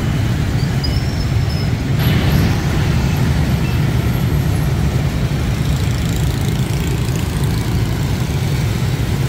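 Dense motorbike and scooter traffic streaming past, with many small engines running together in a steady roar of traffic noise.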